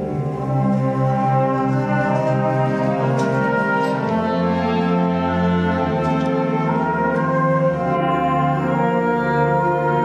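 Brass band playing a concert piece: held chords in horns and low brass, moving to a new chord every few seconds.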